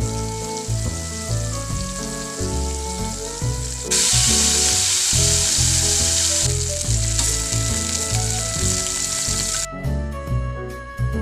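Breaded tuna steaks sizzling as they fry in hot oil in a pan, louder from about four seconds in and cutting off suddenly near the end. Background music with a bass line plays throughout.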